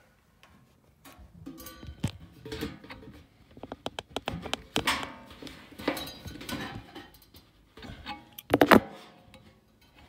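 Hammer striking the hub of a Trane gas furnace's blower wheel, metal on metal: a series of knocks with a ringing tone, the loudest a quick cluster of blows near the end. The wheel has seized on the motor shaft and is being driven along it to bring it back into line.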